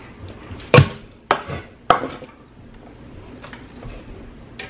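Chef's knife chopping cabbage on a wooden cutting board: three sharp chops in the first two seconds, then a couple of faint taps.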